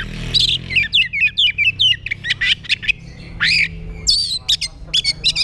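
Oriental magpie-robin (kacer) singing a fast, varied open 'ngeplong' song of whistles, chirps and upward-sweeping notes, with a quick run of sharp notes about four seconds in, over a low steady hum.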